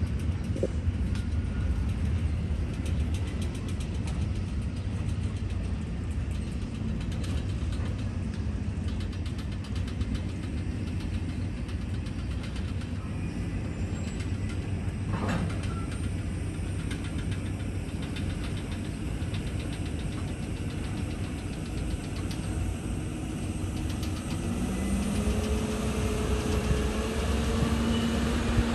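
Engineering work train running past with a steady low rumble and fast clicking. A hum rises in pitch about three-quarters of the way through.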